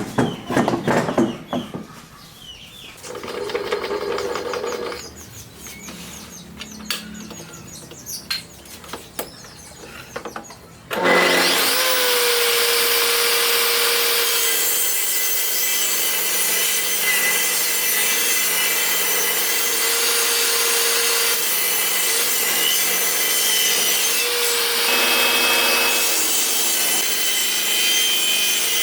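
Quieter, intermittent wood-working noise for about the first ten seconds, then a power tool starts abruptly and runs steadily, cutting wood, with a constant whine over the cutting noise.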